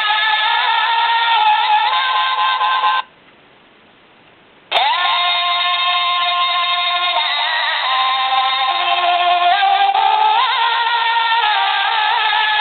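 Alarm clock from Afghanistan playing its alarm, a recorded sung melody of long held notes with small pitch ornaments. It cuts off suddenly about three seconds in and comes back with a click under two seconds later.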